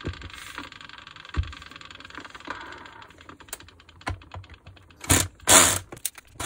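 Makita cordless drill-driver backing out the screws of a polisher's gear housing: a run of sharp clicks, then a short burst of the drill running about five seconds in.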